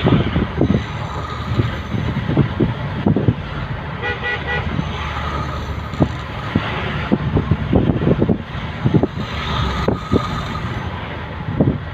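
Road traffic running steadily, with a vehicle horn tooting briefly about four seconds in.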